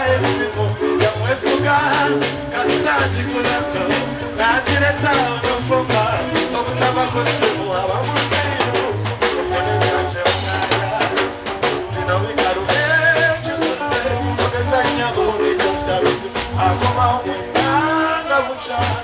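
Live band music with a man singing into a microphone, over a bass guitar line and a drum kit.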